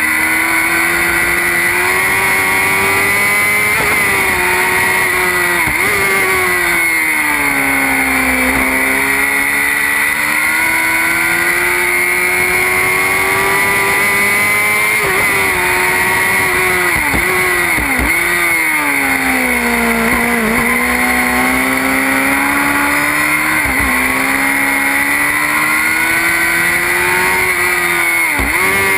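Single-seater formula race car engine heard from an onboard camera at speed on track. The revs climb and fall slowly through the bends, broken by several sudden short dips in pitch.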